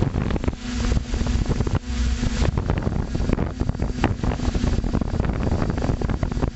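Wind buffeting the onboard camera microphone of an FPV model aircraft in flight, with the steady hum of its motor and propellers fading in and out under the rush.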